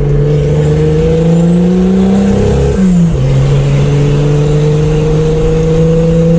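Turbocharged Chevrolet Opala straight-six pulling under acceleration. The engine note climbs for nearly three seconds, drops sharply at a gear change, then climbs again through the next gear. A faint high whistle rises during the first pull. Heard from inside the car with the window open.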